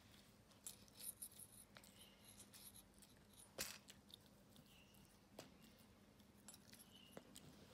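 Teething Maltese puppy chewing on a plush knit toy: faint gnawing, with small clicks of teeth and short crisp fabric rustles, the sharpest click about three and a half seconds in.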